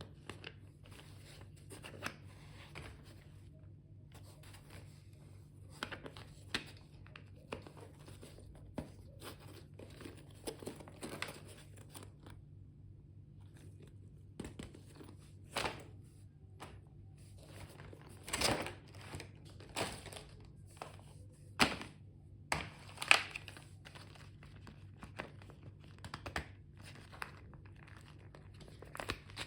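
Stationery packaging being handled and opened: scattered crinkling, tearing and light taps and thunks, which come more often and louder in the second half. A steady low hum runs underneath.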